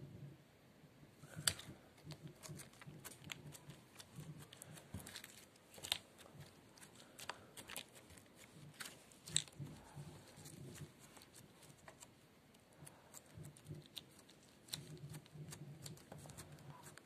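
Glittery slime with beads mixed in being poked and pressed by fingers: irregular sticky clicks and crackles, with a few sharper pops.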